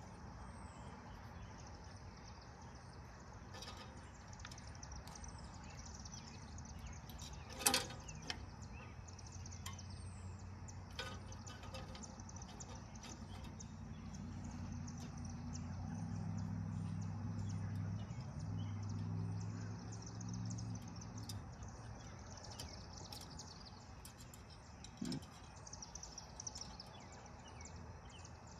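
Birds chirping steadily, with a few sharp metal clicks from hand work on the tractor's throttle linkage; the loudest comes about eight seconds in. A low droning hum swells in for several seconds in the middle and then fades away.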